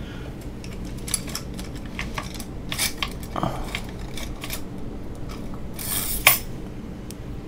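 Small metal clay tools being picked up and handled on a worktable: irregular light clinks and short scrapes, with one sharper clack about six seconds in.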